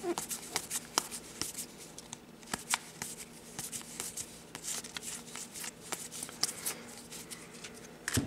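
Stiff game cards being flipped through and slid off one another by hand: a quick, irregular run of soft snaps and clicks.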